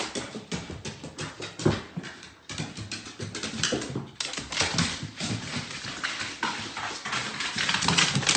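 A dog making small noises, with an irregular patter of clicks and scuffling throughout.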